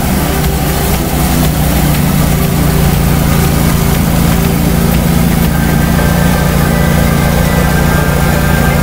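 Ride-on twin-rotor power trowel running steadily as it finishes fresh concrete, its engine close by.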